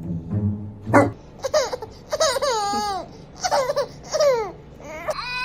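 A baby's voice: a string of short, high-pitched, wavering squeals or cries, one after another.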